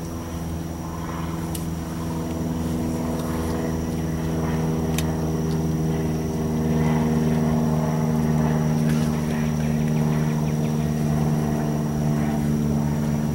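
A steady, low engine drone holding an even pitch, growing a little louder over the first several seconds and then holding level. A faint high steady whine runs under it, and a sharp click sounds a few seconds in.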